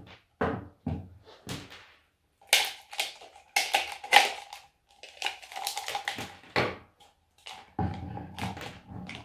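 White plastic PP pipe elbows being handled and set down on a wooden tabletop, with the flat cable dragged through them: an irregular run of knocks, taps and scrapes of hard plastic, and a faint steady tone through the middle part.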